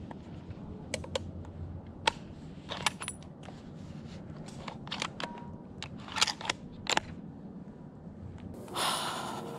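Handling noise from a hunter's gear close to a head-mounted camera's microphone: scattered sharp clicks and light knocks, with a longer rustle near the end.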